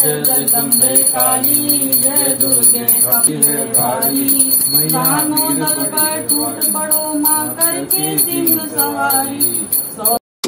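A devotional aarti sung over a small hand bell ringing in a quick, steady rhythm; both cut off abruptly just before the end.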